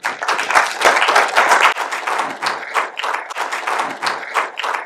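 Audience applauding. It starts suddenly and full, then thins to more separate claps after about two seconds.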